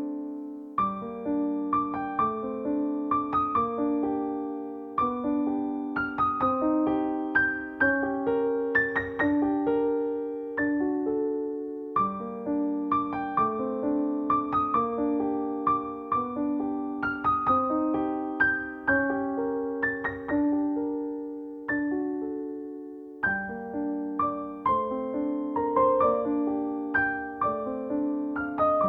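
Gentle background piano music: a soft, steady pattern of repeated notes over sustained chords, easing off for a moment about three quarters of the way through.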